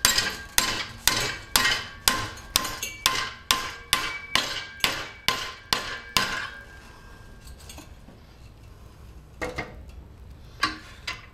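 Hammer blows on a 5/16-inch rod clamped in a bench vise, bending it over into a belt stay: steady strikes about two a second for some six seconds. It then goes quieter, with a few light metal clinks near the end.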